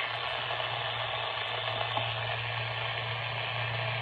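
Steady static hiss with a low hum from a small transistor AM radio's speaker, the radio left on with no station coming through.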